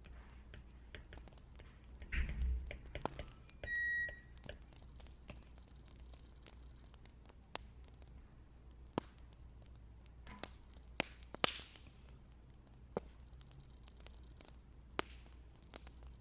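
Wood fire crackling, with scattered sharp pops and snaps at irregular intervals. A dull thud about two seconds in and a short electronic beep about four seconds in.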